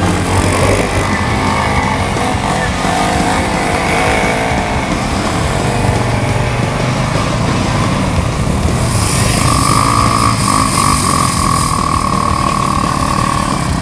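Quad bike (ATV) engine revving hard, its pitch rising and falling with the throttle, then held at a steadier high pitch from about nine seconds in.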